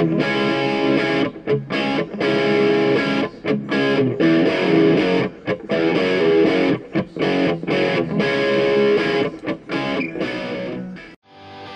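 Background music with guitar, full and dense with short stops. It breaks off about 11 seconds in, and a lighter part of short, quickly repeated notes begins.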